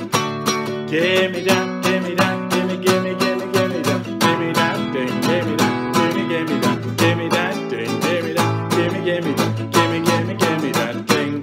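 Acoustic guitar strummed in a quick, steady rhythm, with a man singing along.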